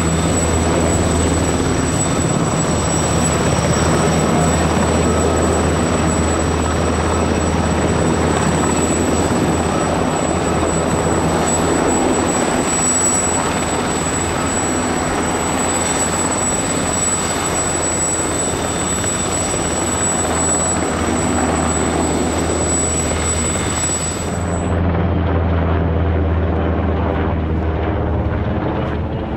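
Military turbine helicopters (Gazelle and NH90) running close by in hover, with a steady low rotor hum and a steady high-pitched whine. About twenty-four seconds in, the whine drops out abruptly, leaving a helicopter flying overhead whose sound sweeps as it passes.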